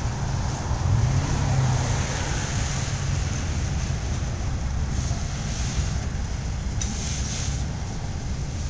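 Freight cars of a welded rail train rolling past at close range: a steady rumble of steel wheels on the rails, with a hiss over it.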